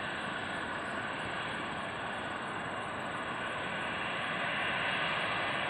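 Four-engine Boeing 747-400 freighter's jet engines during the landing rollout after touchdown, a steady rushing roar that grows slightly louder near the end.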